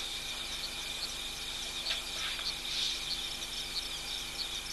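Night insect chorus: crickets trilling steadily at a high pitch, with short higher chirps repeating a couple of times a second.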